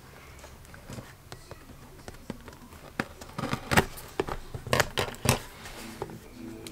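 Cardboard shipping box handled on a wooden tabletop: quiet at first, then from about halfway a run of sharp knocks, scrapes and crinkles as the box is gripped and turned.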